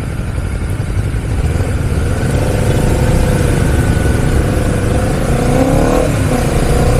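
Honda CBR 250cc sport motorcycle pulling away from a standstill: the engine rises in pitch as it accelerates, drops with an upshift about six seconds in, then climbs again.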